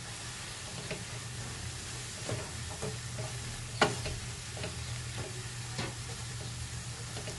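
Shrimp and Chinese cabbage stir-fry sizzling in a non-stick wok as it is stirred with a wooden spatula. The spatula scrapes and taps against the pan every second or so, the loudest tap about four seconds in, over a steady low hum.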